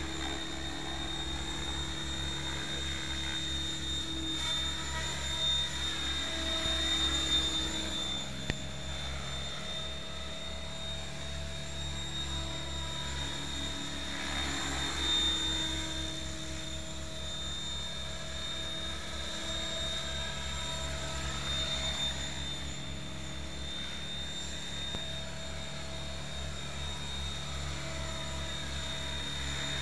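Electric Mikado Logo 600 RC helicopter in flight: a steady rotor hum and motor whine whose pitch sweeps up and down several times as it passes back and forth.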